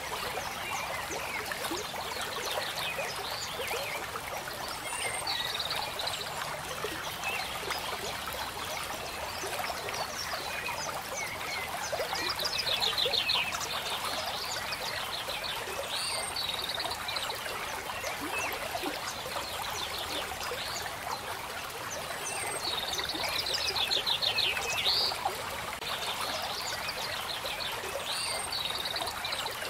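Ambience of running water with repeated trilling animal calls and short high chirps over it. The trills come in clusters and are loudest about twelve seconds in and again near twenty-four seconds.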